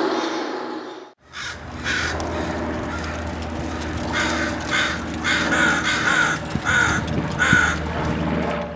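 American crow cawing repeatedly, about eight caws in short runs, over a steady low city hum. A rumbling sound fades out in the first second before the caws begin.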